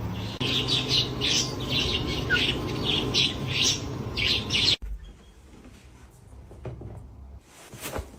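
Cockatiel chirping, a quick run of short high chirps, about three a second, that cuts off suddenly about five seconds in.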